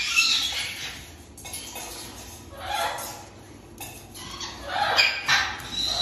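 Parrots giving harsh squawking calls in about three short bursts, a couple of seconds apart.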